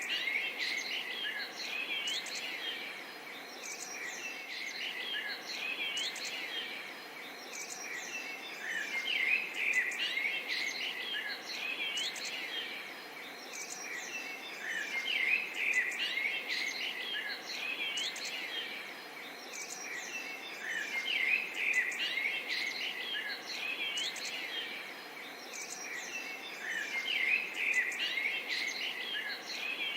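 Dense chorus of many small birds chirping and twittering together, the chorus swelling and fading every few seconds.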